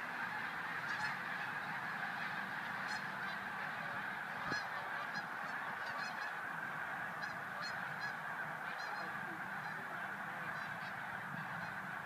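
A large flock of geese calling overhead: many honks overlap into a continuous, steady din.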